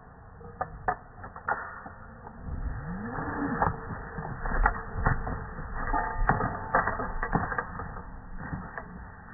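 Scattered metal clicks and knocks with rustling: a climbing rope dragging over the ground and carabiners clinking against each other at a tree anchor as the rope is pulled up taut.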